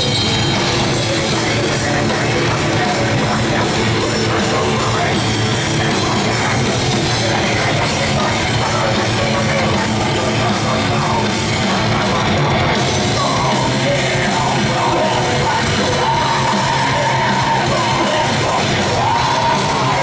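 A death metal band playing live at full volume: rapid drumming under distorted guitars, with a vocalist yelling over the music.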